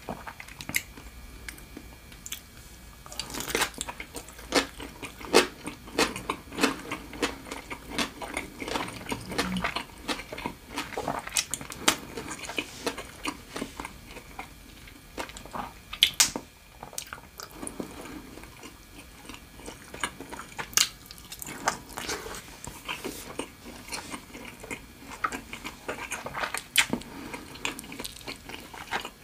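A person eating close to the microphone: chewing and biting food, with frequent irregular sharp crunches.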